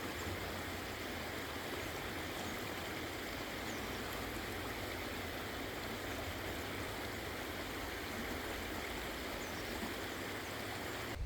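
Mountain stream flowing, a steady, even rush of water that cuts off abruptly at the end.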